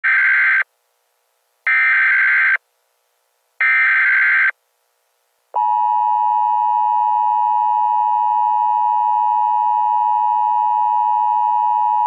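Emergency Alert System signal: three short bursts of SAME header data tones with silent gaps, then the steady dual-tone attention signal starting about five and a half seconds in.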